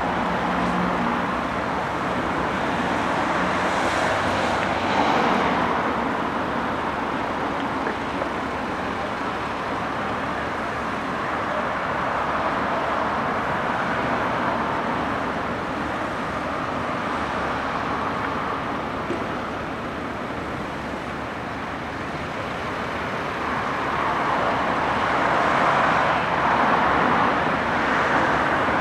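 Road traffic on a busy street: a steady rush of cars passing, swelling louder about four seconds in and again near the end.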